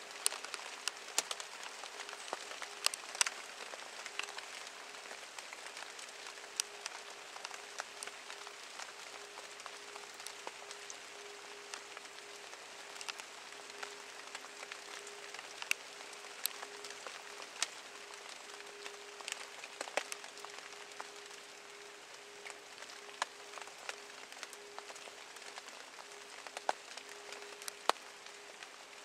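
Steady rain falling, a soft hiss with many separate drops tapping sharply.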